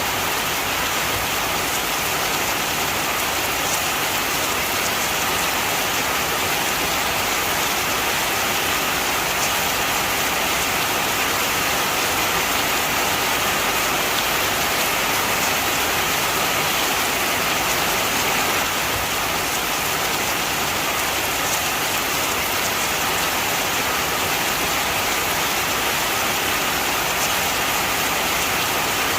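Heavy rain falling steadily, a dense, even hiss of drops with no let-up.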